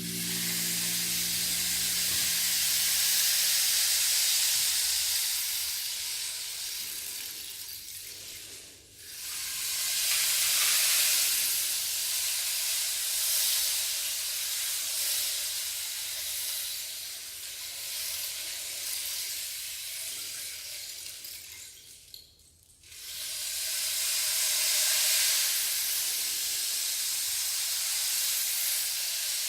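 Rain stick turned over and over: a long rushing hiss of pellets trickling down, swelling and fading in three passes, with a short break about nine seconds in and again about twenty-two seconds in as it is flipped. The low hum of a gong dies away at the start.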